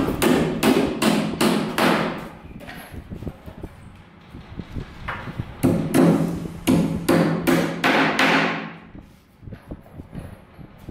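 Claw hammer driving nails into a timber shuttering box. There are two runs of quick blows, about two or three a second, each ringing in the hollow box, with a pause between them.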